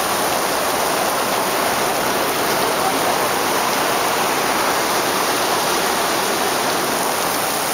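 Heavy rain pouring down steadily as a dense, even hiss, with water running over the flooded street.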